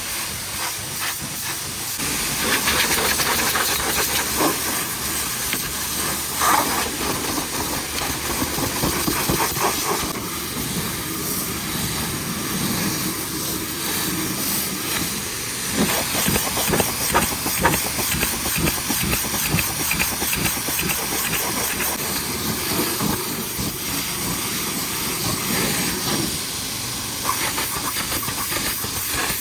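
High-pressure washer spraying water onto the truck, a steady hiss of the jet that swells and drops as the spray moves over the surfaces.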